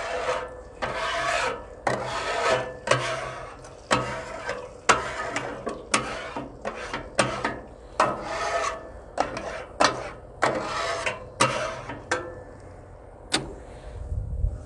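Metal griddle scraper rasping across the steel cooktop of a Blackstone flat-top griddle in repeated strokes, about one a second, pushing the leftover grease and food scraps back toward the rear grease hole after cooking. The strokes stop about twelve seconds in, followed by a single click.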